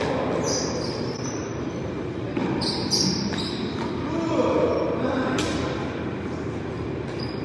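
Paddleball being played: a rubber ball smacked by paddles and off the wall, giving a handful of sharp, irregularly spaced hits in a hard-walled indoor court over a steady low rumble.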